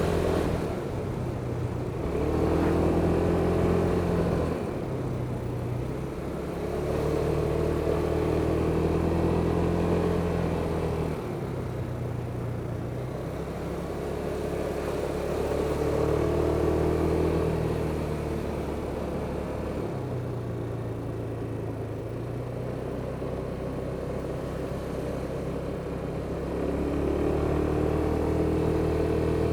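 Kymco Superdink 300 maxi-scooter's single-cylinder four-stroke engine under way, its note swelling as the throttle opens and easing back off several times, heard over rushing wind.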